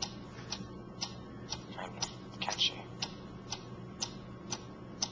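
Steady clock-like ticking at an even pace of about two ticks a second: the 'mysterious ticking noise'.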